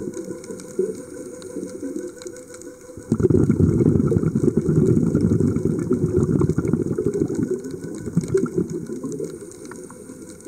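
Underwater bubbling of a scuba diver's exhaled breath from the regulator. A fading stretch is followed by a louder burst of bubbles that starts abruptly about three seconds in and dies down toward the end.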